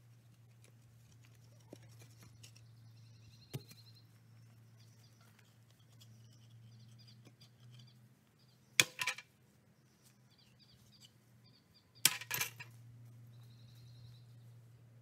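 Metal fence posts clanking as they are pulled and handled: two short clusters of sharp clanks, about nine and twelve seconds in, with a few lighter knocks earlier. Faint bird chirps sound throughout.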